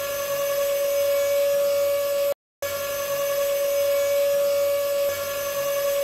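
Cartoon machine-whir sound effect of a robotic arm's motor: a steady humming tone with a hiss over it, in two long stretches broken by a short gap about two and a half seconds in.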